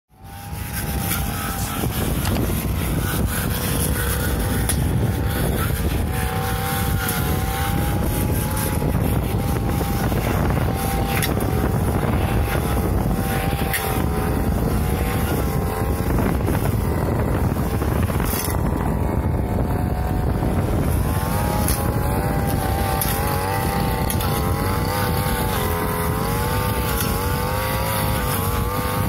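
Backpack brush cutter's small petrol engine running hard while cutting long grass, its pitch wavering up and down as the throttle and load change. The sound fades in at the very start.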